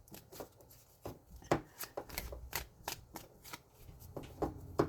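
Tarot cards being shuffled and handled by hand: a run of irregular sharp card snaps and slaps, the loudest about one and a half seconds in.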